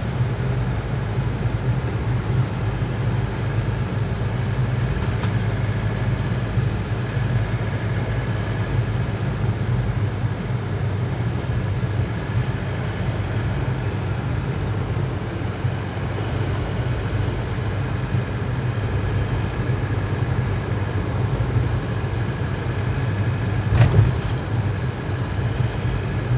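Steady low road and engine rumble of a moving car, heard from inside the cabin, with one sharp knock near the end.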